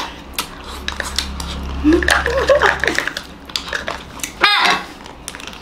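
People eating ice cream: small clicks and scrapes of spoons in ice cream cups, with a few brief voice sounds in the middle and a girl's short high squeal about four and a half seconds in.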